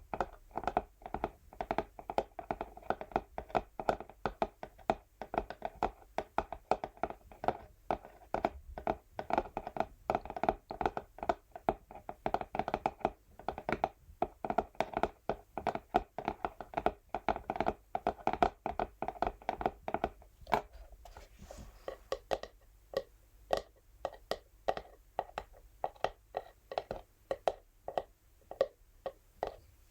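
Natural fingernails tapping rapidly on an empty textured cardboard box, the hollow box giving each tap a resonant knock. About twenty seconds in there is a brief softer stretch, after which the taps come more sparsely.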